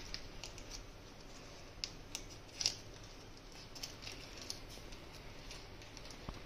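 Faint crinkling and crackling of a paper cupcake liner being handled, in scattered small clicks, the sharpest one about two and a half seconds in.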